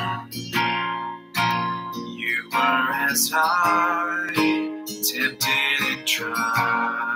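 Acoustic guitar strummed in a slow worship song, with a man singing along to his own playing, his voice wavering on held notes in the middle.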